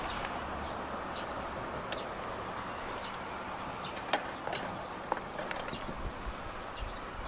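Wooden chopsticks stirring porridge in an aluminium camping pot, with scattered sharp clicks where they knock against the pot, the loudest about four seconds in, over a steady hiss.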